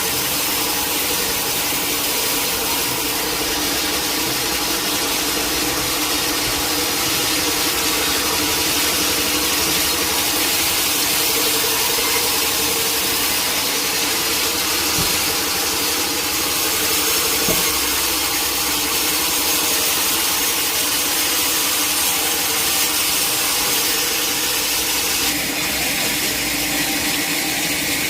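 Sawmill saw cutting steadily through a large teak log: a continuous loud hiss of the blade in the wood over the steady hum of the machine.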